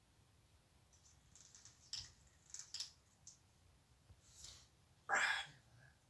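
A few soft, scattered clicks from an African grey parrot, then a short, louder breathy sound about five seconds in.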